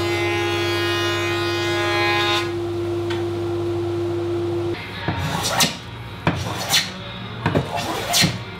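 Woodworking jointer running with a steady whine, fuller and brighter for the first couple of seconds while a board is fed over its cutterhead. It cuts off about five seconds in and is followed by about six quick strokes of a hand plane, each a short rasping swish as it shaves the wood.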